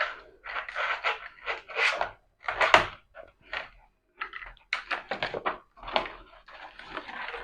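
Handling noises from an HDD caddy and its small parts being unpacked and handled: a quick run of irregular rustles, clicks and knocks.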